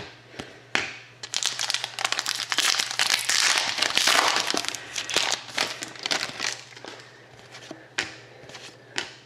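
Crinkling of a foil trading-card pack wrapper being handled and torn open, heaviest in the first half, with a few sharp clicks and taps of cards near the start and end.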